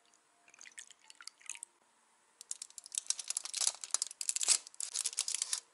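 A table knife cutting into a soft cocoa-coated crumb cake, crinkling the foil cupcake liner beneath it: a dense run of sharp crackles in the second half, after a few lighter clicks in the first couple of seconds.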